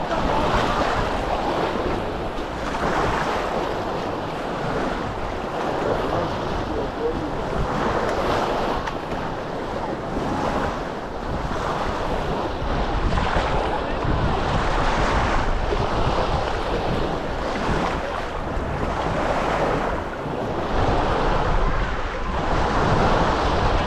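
Small sea waves breaking and washing up the beach, surging every two to three seconds, with wind buffeting the microphone.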